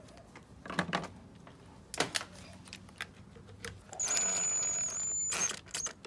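Cordless drill-driver running for about a second and a half with a steady high whine, driving a screw into a dishwasher pump housing, then cutting off. Two sharp knocks of tool handling come before it.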